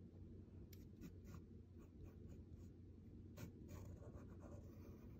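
Faint scratching of a graphite pencil sketching short, irregular strokes on paper.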